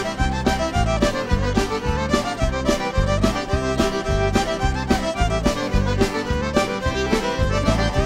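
Background music: an upbeat instrumental tune with a steady beat.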